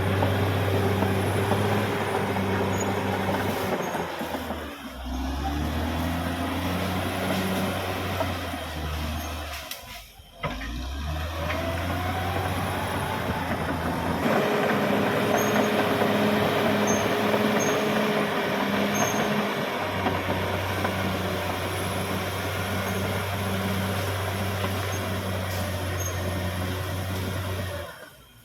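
Caterpillar D6R XL bulldozer's diesel engine running steadily as it works, its pitch shifting several times, with short drops in level about 5 and 10 seconds in and again at the very end.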